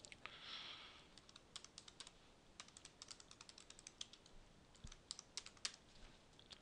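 Computer keyboard typing a short line of text: a quick, faint run of keystrokes, several a second, for about four seconds. A short soft hiss comes just before it.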